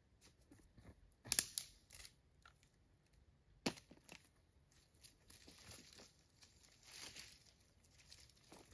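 Dry twigs and leaf litter on a forest floor crackling and rustling as dead branches are handled and dragged. There are sharp cracks about a second and a half in and again just before four seconds, then a longer stretch of rustling.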